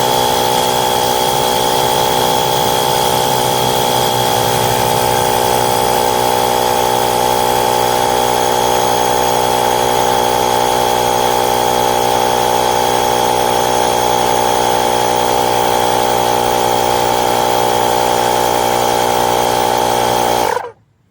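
Portable air compressor of a VTOMAN X7 jump starter running steadily while inflating a car tyre, a loud whirring drone with a steady pitch. Near the end it cuts off suddenly: the automatic shut-off at the preset 34 PSI.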